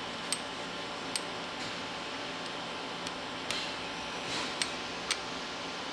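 A flat honing stone rubbed by hand over a machined metal fixture surface to knock down high spots before clamping: several sharp clicks as the stone taps and catches on the metal, and a soft scraping swell about three and a half seconds in, over a steady background hum.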